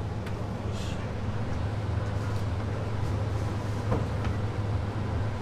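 Steady low mechanical hum with a noisy background and a few faint clicks.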